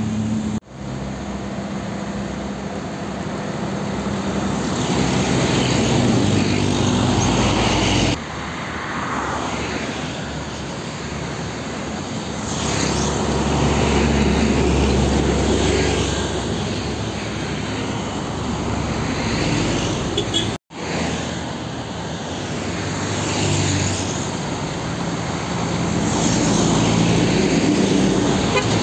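Road traffic passing close by: heavy diesel cargo trucks running past, with motorcycles and cars mixed in. The sound breaks off abruptly and resumes three times.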